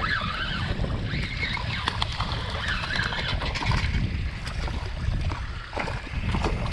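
A hooked snook splashing and thrashing at the water's surface beside a small boat as it is reeled in quickly, over a steady low rumble.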